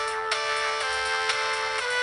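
Motorola RAZR V8 ringtone: an electronic melody of quick, evenly spaced notes over a steady beat, starting just after a brief break from the tune before.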